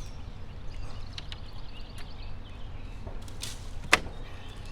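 Handling noises as a fish hook snagged in a tree branch is worked free: a brief rustle, then a single sharp snap about four seconds in, over a steady low rumble.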